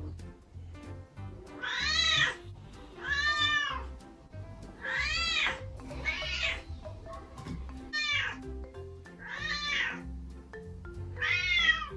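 A kitten meowing over and over, about seven meows, each under a second and rising then falling in pitch, over background music.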